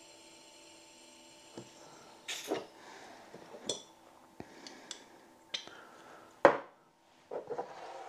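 Butane gas canister refill: a faint steady hum stops about two seconds in, followed by a short hiss as the donor can and adapter are lifted off the red Primus canister. Then come the scattered clicks and knocks of metal canisters being handled on a stone worktop, the loudest a single knock about six and a half seconds in.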